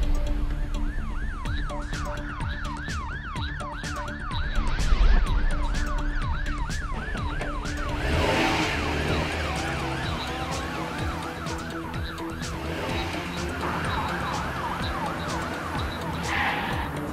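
Emergency vehicle siren sound effect in a fast yelp, sweeping up and down about three times a second, with a second siren pattern overlapping from about eight seconds in, over background music.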